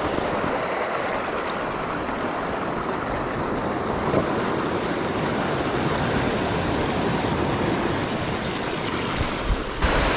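Ocean surf washing steadily along the shore.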